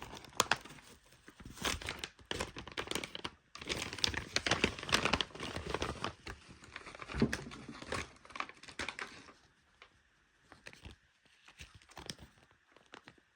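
Packaging being torn open and crinkled by hand: a dense run of crackling and tearing for about nine seconds, then quieter scattered clicks and rustles.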